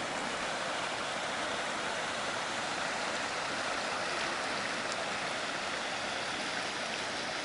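River water rushing steadily over a low weir.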